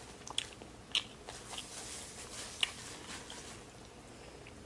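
A person chewing and biting food close to the microphone: soft mouth sounds with a few short, sharp crunchy clicks, the clearest about a second in and again past the halfway mark.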